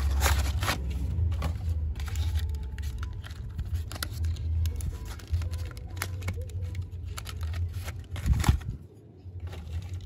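A cardboard toy box being opened by hand and its packaging rustling and crinkling as a small diecast excavator is slid out: a run of scrapes and light clicks, with one louder knock about eight seconds in, over a steady low rumble.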